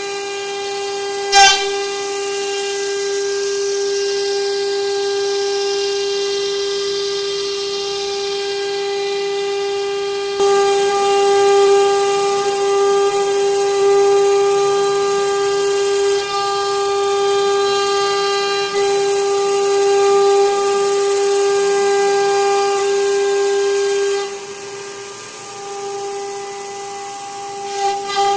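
CNC router spindle whining at a steady high pitch while its V-bit engraves a wooden door panel. The sound gets louder about ten seconds in and falls off for a few seconds near the end as the cutting load changes. A single sharp click comes about a second in.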